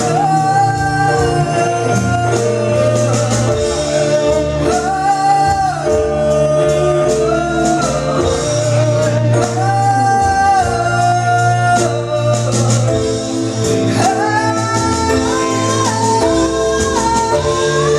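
Music: a song with a singer holding long notes over a steady band accompaniment with bass.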